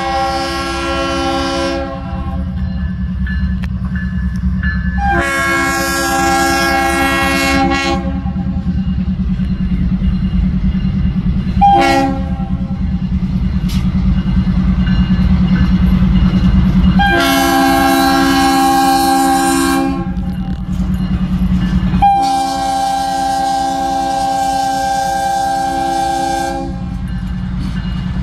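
BNSF diesel locomotive sounding its multi-chime air horn for a grade crossing: two long blasts, a short one, then two more long blasts, the last held longest. The locomotive's diesel engine rumbles steadily underneath.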